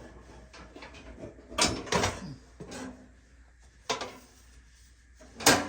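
Handling noise from a small kerosene heater being turned over and its foot pan fitted: a few separate clunks and scrapes, the loudest one near the end.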